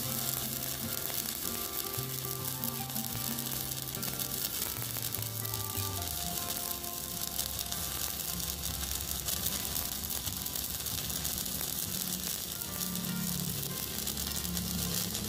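Stick-welding arc from a Poney MMA 200E mini inverter welder burning a 4.0 mm electrode at maximum current, with a steady hiss throughout.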